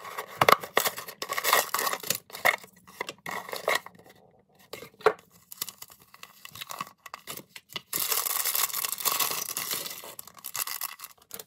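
Hands tearing open a small cardboard LEGO box, with sharp clicks and short tearing sounds. Then a thin plastic parts bag crinkles and rustles steadily for a few seconds as the LEGO pieces are emptied out of it, stopping abruptly at the end.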